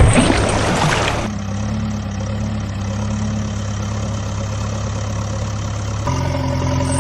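Steady heavy engine drone at idle, laid over a toy backhoe loader, with thick mud splashing in the first second; the engine note changes about six seconds in.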